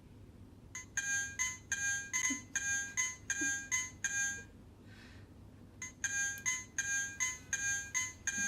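Renesas wireless doorbell receiver's small speaker ringing an electronic chime tune of about a dozen quick beeping notes. The tune plays twice, with a pause of about a second between the runs. This signals that the receiver has picked up the transmitter's wireless signal after its key was pressed.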